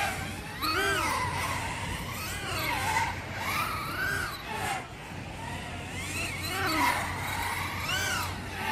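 A 250-size racing quadcopter flying on 2205 2300KV brushless motors with 5040 four-blade propellers. Its motors' whine rises and falls in pitch over and over as the throttle changes.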